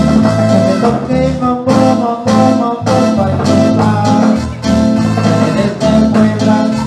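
Cumbia played by a live band: guitar and a brass-like melody over bass and drums in a steady dance beat.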